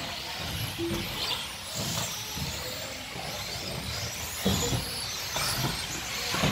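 Electric radio-controlled stock buggies racing on a carpet track, their motors whining up and down as they speed up and slow through the corners, with a few short thumps of landings and knocks, the loudest about four and a half seconds in.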